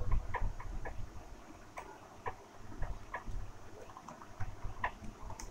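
Handheld whiteboard eraser rubbing across a whiteboard to wipe off marker writing: a low rumble with scattered faint ticks.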